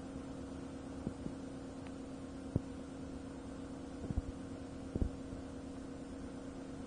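Steady low hum with a few faint clicks and taps scattered through it.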